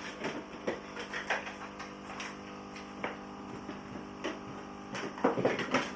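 Scattered light plastic clicks and knocks from handling a coffee machine's capsule adapters and holders, with a busier cluster near the end. A steady hum runs underneath.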